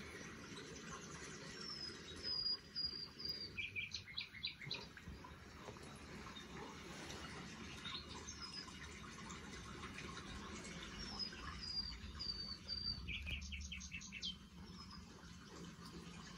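A songbird singing the same phrase twice, starting about 2 seconds in and again about 11 seconds in: a run of short high notes ending in a quick trill of falling notes.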